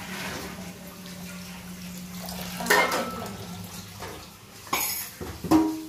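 Dishes and utensils clinking and knocking at a kitchen sink, with water running from the tap. There are a few sharper knocks, about three seconds in and twice near the end.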